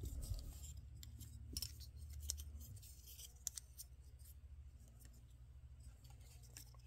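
Faint, scattered clicks and light rubbing of small plastic figure parts and a clamp being handled, over a steady low hum.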